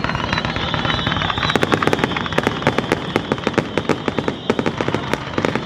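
Fireworks: a spark fountain hissing in a steady high tone from about the start, over a rapid, irregular crackle of pops.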